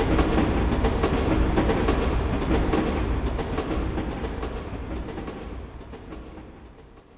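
Train sound effect from a TJ Media PRO-3000 karaoke machine: a train's rumble and clickety-clack of wheels on rail joints that fades away toward the end.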